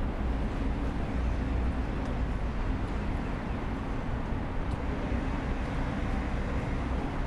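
Steady, continuous noise of city road traffic, passing engines and tyres blending into one even rumble.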